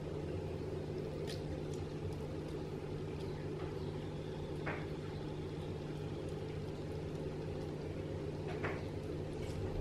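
Steady low hum of running aquarium equipment, with three faint short ticks spread through it.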